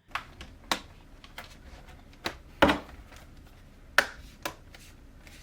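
Plastic bottom cover of a Lenovo Legion 5 laptop being pressed and snapped back onto the chassis by hand: a series of sharp clicks and snaps as the cover's clips catch, the loudest about two and a half and four seconds in.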